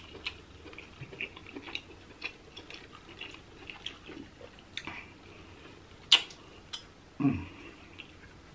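Close-up crackles and clicks of king crab leg shell being picked apart by hand and the meat pulled out and eaten, with wet mouth sounds. A sharp crack of shell about six seconds in, and a short low sound that falls in pitch a little after seven seconds.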